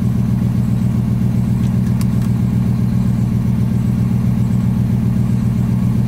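BMW E39 540i's 4.4-litre V8 idling steadily, heard from inside the cabin, with a single faint click about two seconds in.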